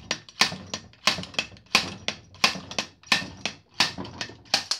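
A slide hammer's sliding weight striking its stop again and again, about eight sharp metallic knocks at roughly three every two seconds. It is pulling the rear output shaft and its bearing out of a Land Rover LT230 transfer box.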